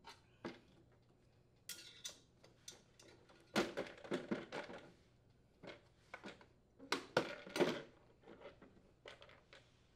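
Black plastic shroud of a Honda lawn mower being worked loose and lifted off the deck by hand: scattered clicks, knocks and scraping rattles of plastic against metal, busiest around four and seven seconds in.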